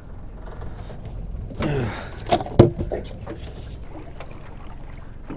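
Steady low wind and water noise around a small open aluminium boat. About two seconds in comes a short rush of noise, then a sharp knock, the loudest sound.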